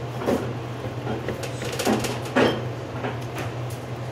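Butcher's knife slicing down through a pork loin between the ribs to part the chops: a few scraping strokes and knocks, the loudest about two and a half seconds in, over a steady low hum.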